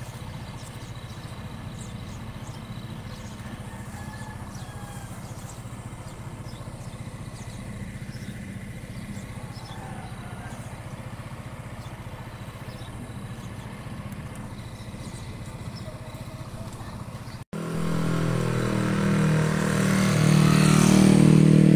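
A motor vehicle engine running steadily as a low hum. After a brief break about three-quarters of the way in, a much louder engine runs close by, growing louder toward the end.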